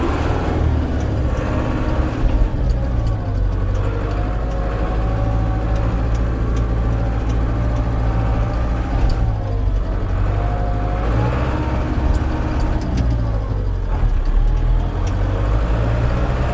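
International 685XL tractor's four-cylinder diesel engine running under way, heard from the cab, its pitch dipping and rising a few times as the tractor is driven and turned.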